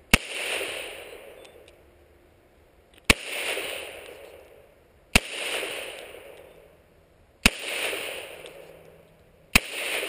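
1911 pistol fired five single shots, spaced about two to three seconds apart, each sharp crack followed by an echo that fades over about a second and a half.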